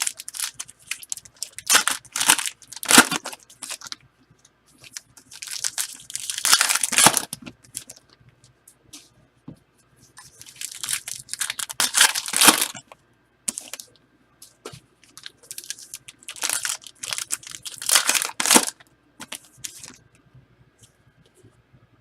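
Football trading-card pack wrappers being torn open and crinkled, in several long rustling bursts with small clicks of card handling between them.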